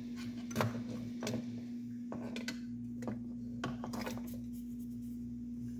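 Scattered light clicks and taps as hands handle wires and parts against a 3D printer's frame, over a steady low hum.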